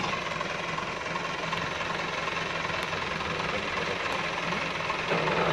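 Massey Ferguson 375 tractor's Perkins four-cylinder diesel engine idling steadily.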